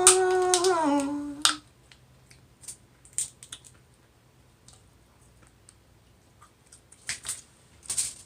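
A woman sings a held note that ends about a second and a half in. Then come scattered sharp clicks and cracks, loudest near the end: eating sounds typical of snow crab shells being cracked and picked in a seafood boil.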